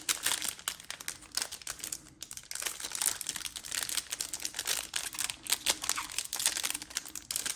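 Foil trading-card pack being torn open and crinkled by hand, with a dense run of irregular crackles and rustles.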